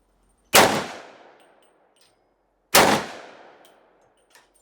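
Two shots from an AMT Automag III pistol chambered in .30 Carbine, about two seconds apart, each a sharp crack that rings off over about a second.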